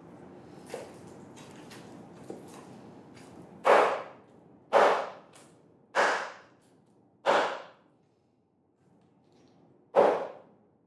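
Kitchen knife chopping through a roast chicken onto a wooden cutting board: five sharp strikes, four about a second apart and a last one after a pause of over two seconds. Faint knife clicks come before them.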